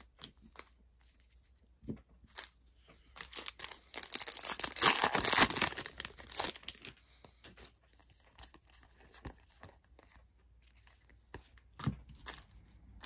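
A shiny plastic trading-card pack wrapper torn open by hand, with a few seconds of tearing and crinkling a few seconds in. Soft clicks of cards being handled before and after.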